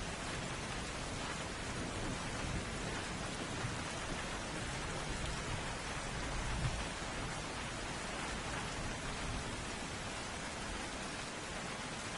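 Steady heavy rain falling on surfaces, with a brief low rumble about six seconds in.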